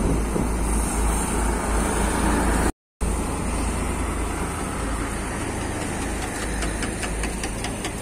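Heavy diesel snow-clearing trucks driving past, a plough truck and then a KamAZ sand-spreader truck, their engines giving a steady low rumble. The sound drops out for a moment about three seconds in, and near the end a fast ticking, about five a second, joins the engine.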